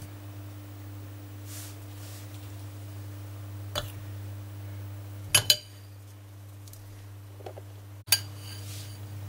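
A metal spoon clinking against a glass bowl of melted chocolate: a single light clink a little under four seconds in, then two sharp clinks close together about five and a half seconds in, over a steady low hum.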